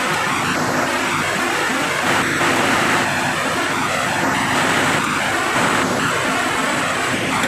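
MS Maschinenbau sawmill line machinery running: a steady rushing mechanical noise with a low motor hum as a squared timber cant is fed along the roller conveyor. It swells slightly about two seconds in and again near six seconds.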